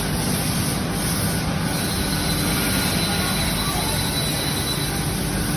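CNC wood-cutting machine running: a steady machine noise with a low hum and a faint high whine that comes in about two seconds in and fades near the end.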